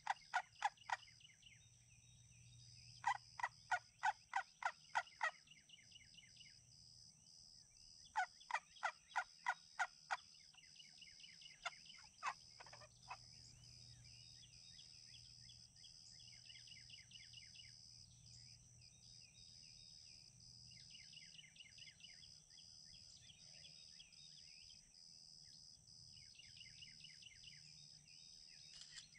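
Wild turkey yelping in several runs of evenly spaced notes, about four a second, each run lasting about two seconds, all in the first half. Small birds chirp faintly and a steady high-pitched drone runs underneath.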